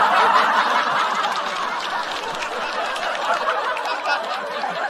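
Studio audience laughing after a punchline, loudest at the start and slowly dying away.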